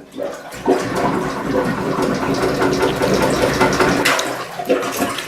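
Water churning and sloshing in a clogged toilet bowl for about three and a half seconds, starting about half a second in, followed by a couple of short knocks near the end.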